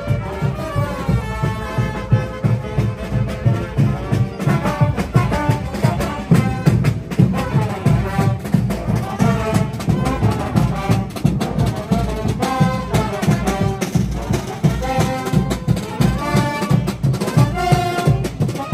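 Brass band music, with trumpets and trombones playing a quick melody over a steady drum beat.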